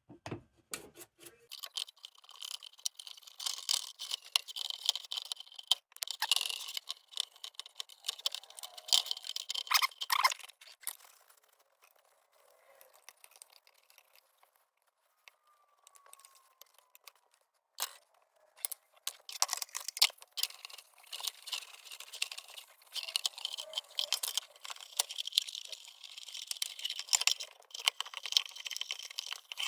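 Hands working on a steel lantern, most likely rubbing it down with an oily rag: scratchy rubbing with many small clicks and rattles of the metal parts. It stops for several seconds in the middle, then starts again.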